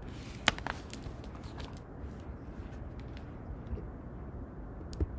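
Low steady room hum with a sharp click about half a second in, a few fainter taps, and a knock near the end: handling noise as the picture book is put aside and the recording phone is moved.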